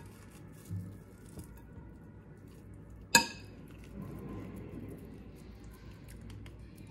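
A single sharp, ringing clink of a metal spoon against a glass mixing bowl about three seconds in, among quiet handling sounds of the food.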